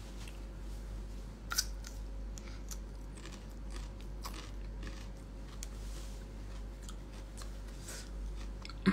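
Crunchy chewing of a raw peeled carrot close to the microphone: a sharp bite about one and a half seconds in, then irregular crisp crunches.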